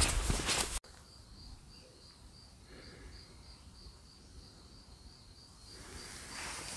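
Footsteps on a dirt trail, then a sudden cut to a quiet stretch where a cricket chirps faintly: a high, even pulse about three times a second. Footsteps return near the end.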